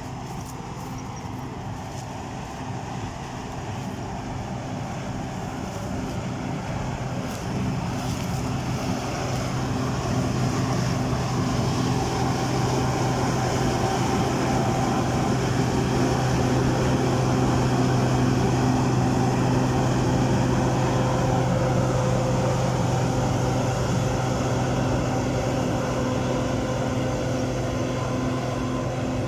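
John Deere combine harvester running as it harvests dry corn: a steady engine and machinery drone that grows louder as the combine comes close, loudest around the middle, then eases a little as it passes.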